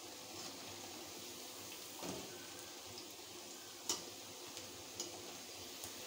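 Moong dal fritters deep-frying in hot oil in a steel kadhai: a steady sizzle as they are fried until crisp, with a few sharp clinks of a slotted steel spatula against the pan, the loudest about four seconds in.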